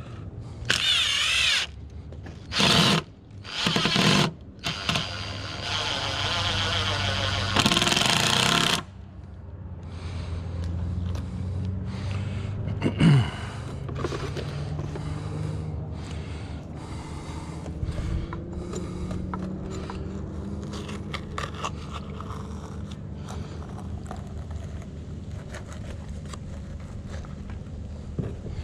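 Power drill running in four bursts over the first nine seconds, the last about three seconds long, with a wavering whine. A steady low motor hum follows.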